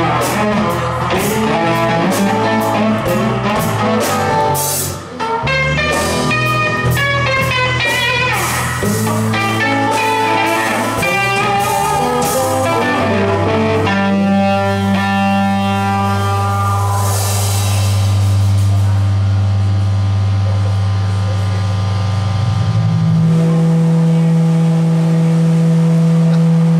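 Live blues-rock band of electric guitars, acoustic guitar and drum kit playing, busy with drum hits and guitar lines for about the first half. Then the band holds long sustained chords that ring on, with the low note changing near the end.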